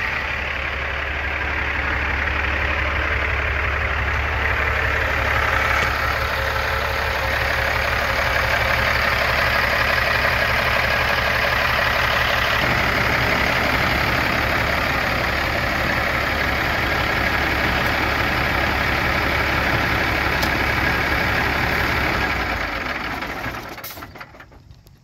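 Diesel engine of a 2007 Volvo day cab truck tractor idling steadily, a red Cummins engine under the tilted hood. It stops near the end.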